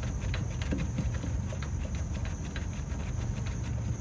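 Faint irregular clicking and handling of a brass flare nut being threaded by hand onto a mini-split's refrigerant service valve. A steady high thin tone and a low rumble run underneath.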